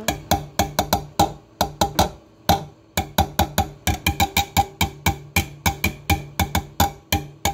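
Background music with a fast beat of short, sharp, clicky percussive hits over a low held note.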